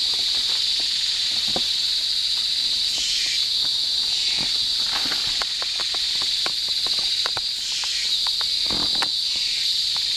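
Rainforest insects droning in a dense, steady, high-pitched chorus that swells twice. Scattered rustles and small cracks come from the dry leaf litter and twigs on the forest floor, most often in the second half.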